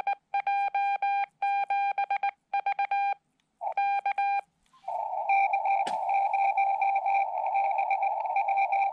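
Xiegu X5105 transceiver's Morse code sidetone: a single steady-pitched beep keyed in quick dots and dashes, with a short break about three seconds in. About five seconds in the keying stops and the receiver's hiss comes up through the narrow CW filter, with a click a second later.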